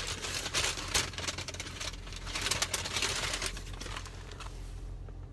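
Takeout food packaging being handled and opened: irregular paper rustling with quick clicks and taps, fading toward the end.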